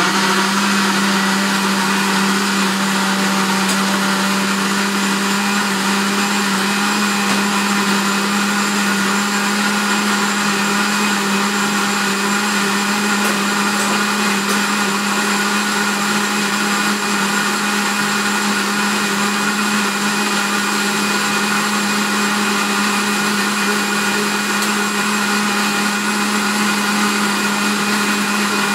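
Countertop blender running steadily on low speed, blending a liquid banana cake batter.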